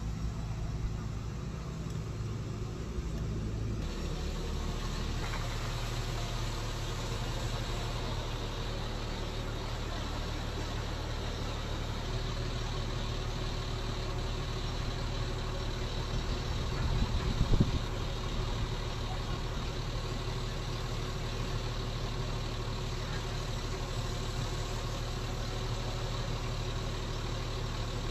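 Mobile crane's diesel engine idling steadily, a low even hum that shifts slightly about four seconds in. A brief knock sounds about two-thirds of the way through.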